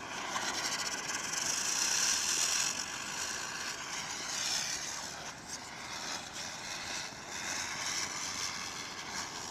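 A Diwali ground spinner (chakri) whirling on the ground as it burns, giving a steady hiss that is loudest about two seconds in and eases a little after three seconds.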